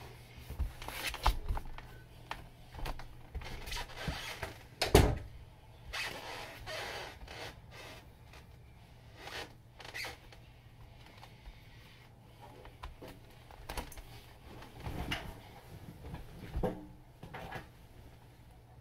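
Handling and moving-about noises: scattered knocks, rustles and bumps as a person shifts around and climbs onto a bed, with one sharp thump about five seconds in, over a faint steady low hum.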